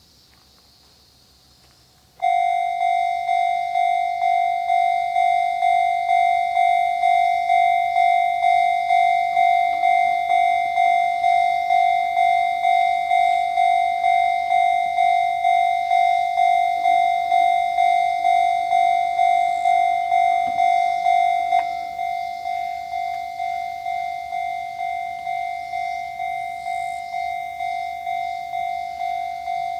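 Japanese railway level-crossing warning bell of the newer electronic type: a steady repeating ding, about three strikes every two seconds, starting suddenly a couple of seconds in. It drops in volume a little over two-thirds of the way through.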